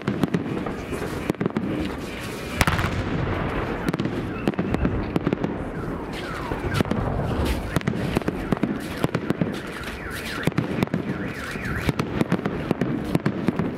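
Fireworks display: a dense run of bangs and crackles from bursting shells, with one strong bang about two and a half seconds in. Whistling tones that glide in pitch come through the bangs in the middle and later part.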